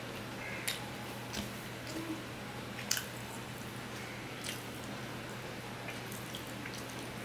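Fingers squishing and mixing rice with fish curry on a stainless steel plate, with close wet chewing and scattered sharp clicks, the loudest about three seconds in, over a steady low hum.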